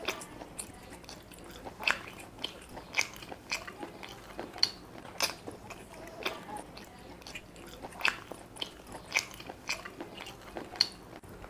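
Close-miked eating: chewing and biting into a chicken leg and biryani, with sharp wet mouth smacks and clicks coming irregularly, about a dozen of them.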